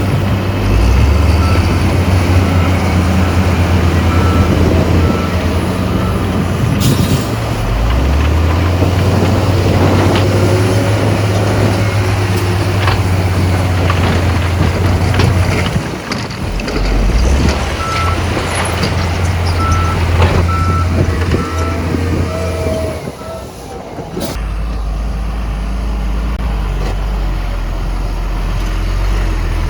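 A heavy diesel dump truck engine runs under load, its note shifting several times and settling lower near the end. A reversing alarm beeps in two spells, near the start and again about two-thirds through.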